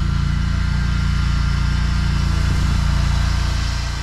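Exmark Staris stand-on mower's engine running steadily at throttle while pushing a front-mounted leaf plow, easing off slightly near the end.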